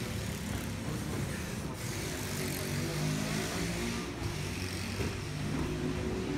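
Bare feet shuffling and thudding on tatami mats with gi cloth rustling, as several attackers in a multiple-attacker aikido randori are thrown and roll. A steady low rumble runs underneath.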